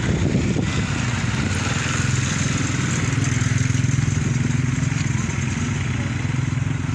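A small vehicle engine running steadily near idle, a little louder around the middle.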